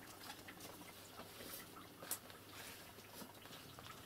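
Quiet room tone with faint scattered clicks and soft rustles, and one sharper tick about two seconds in.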